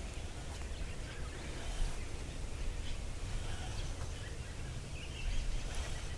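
Quiet outdoor ambience: a steady low rumble with faint bird chirps.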